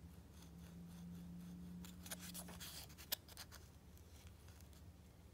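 Faint handling noise: fingers rubbing and turning a cardboard coin holder, with a sharp click about three seconds in, over a low steady hum.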